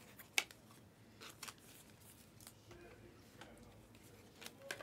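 2021-22 Panini Select basketball trading cards being slid one by one off a stack in the hand: faint, scattered clicks and light rustles of card edges against each other.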